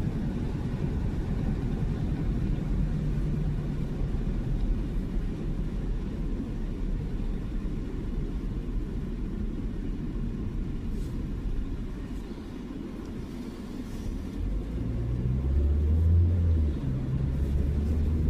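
Road noise inside a moving car: a steady low rumble from the tyres on a wet road and the running engine. It eases off about twelve seconds in, then a low engine hum comes up and grows louder near the end.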